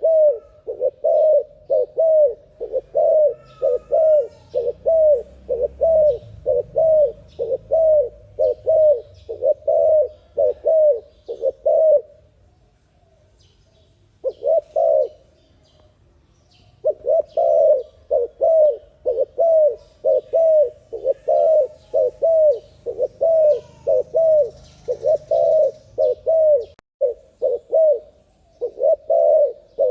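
A spotted dove (terkukur) cooing fast and over and over, about two coos a second, the quick repeated calling used to lure doves. The run of coos stops for a few seconds near the middle and briefly again near the end, with faint chirps of small birds behind it.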